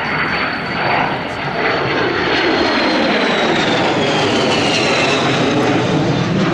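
Jet noise from a Kawasaki C-1 military transport's two turbofan engines as the aircraft flies low overhead, with a high engine whine that falls steadily in pitch as it goes by.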